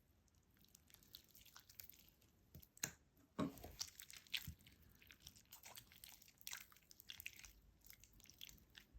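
Faint sticky clicks and squelches of slime with lotion worked into it being pressed and stretched by hand, with a cluster of louder pops about three to four and a half seconds in.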